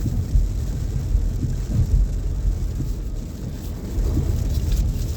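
Heavy rain drumming on a car's roof, with a dense, uneven low rumble of road noise, heard inside the cabin of a moving car.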